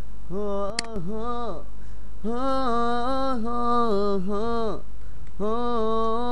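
A singer holding long, wordless notes of a Hindi/Urdu romantic song, in three drawn-out phrases, over a steady low hum. There is a brief click and dropout about a second in.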